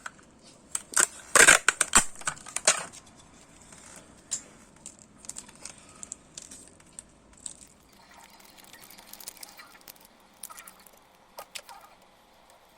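Clicks and rattles of an RC helicopter's parts being handled as the belt-drive tail boom is fitted to the main frame: a dense run of loud clicks about a second in, then sparser, softer ones.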